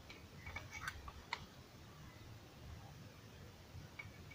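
Faint scattered clicks of fingers handling and twisting thin hookup wire onto an amplifier board's connector: a few in the first second and a half, one more near the end.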